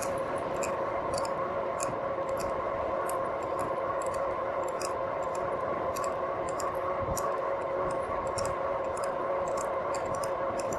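A Rad Power RadMini fat-tire electric bike cruising on pavement makes a steady, even whine. Light irregular ticks sound over it about once or twice a second.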